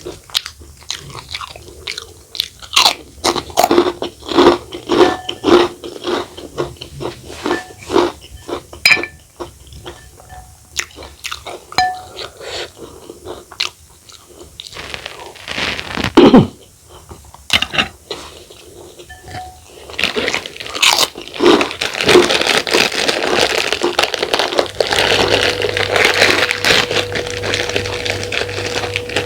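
Close-miked chewing and crunching of crunchy food, with bursts of sharp crunches and pauses between mouthfuls. From about two-thirds of the way in, the crunching becomes a denser, continuous crackle, and a faint steady hum joins near the end.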